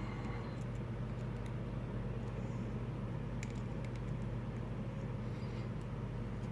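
Steady low hum of background noise, with a few faint light clicks of small metal tools picking at a padlock plug's retaining ring.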